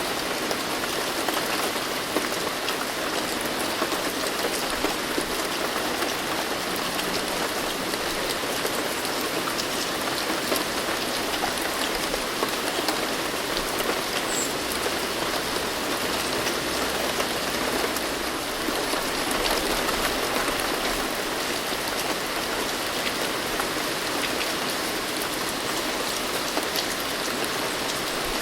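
Steady rain falling, an even hiss of many drops pattering on a surface.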